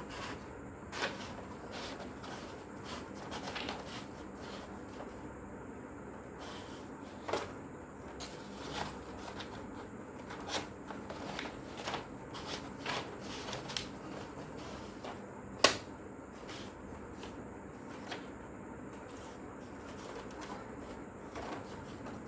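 Electric typewriter running, its mechanism clicking and clacking at irregular intervals over a steady background whine, with one sharp, loud clack about two-thirds of the way through.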